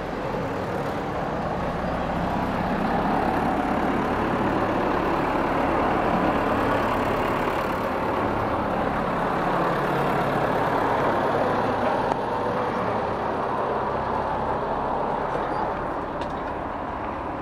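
Road traffic: a steady vehicle rumble that swells through the middle and eases off near the end.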